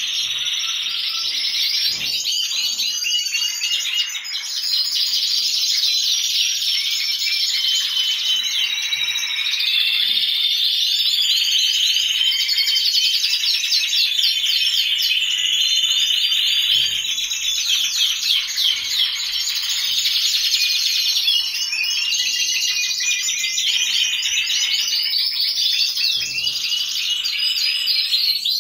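A group of caged canaries singing together: a continuous chorus of rapid rolling trills, chirps and warbled phrases, overlapping without a break.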